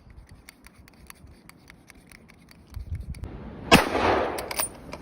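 A single rifle shot about three and a half seconds in, loud and sharp, with a long rolling echo fading after it. Faint scattered ticks come before it.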